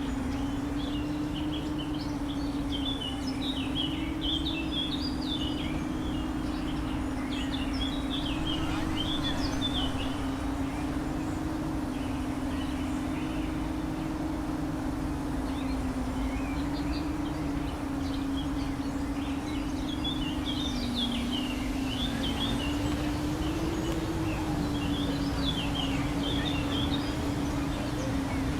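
Small FPV drone's motors buzzing steadily, the pitch wavering a little with throttle, while birds chirp in two spells.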